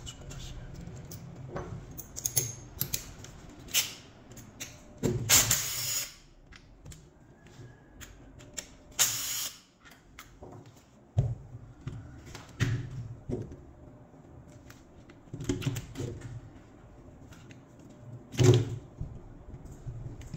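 A small Makita cordless impact driver running briefly twice, backing out housing screws from an impact wrench. Around it are scattered clicks and knocks of screws and plastic and metal parts being handled.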